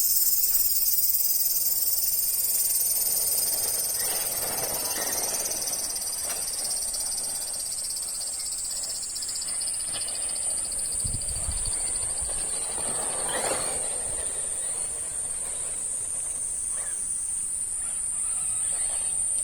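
A chorus of cicadas buzzing steadily at a high pitch. A lower rushing sound swells and fades twice, about four seconds in and again about thirteen seconds in.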